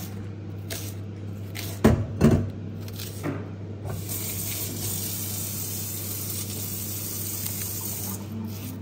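A kitchen knife cutting through an onion onto a wooden cutting board: a few sharp knocks of the blade on the board, the two loudest about two seconds in. From about four seconds a steady hiss runs for some four seconds, over a low steady hum.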